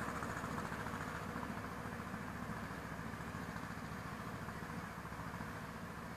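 Homemade mini tractor's engine running steadily, slowly fading as the tractor drives away across the field.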